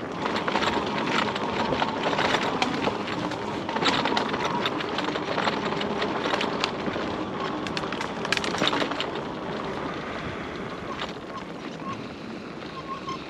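E-bike rolling along a dirt trail: tyres and frame crackling and rattling over the ground, easing off and getting quieter about ten seconds in.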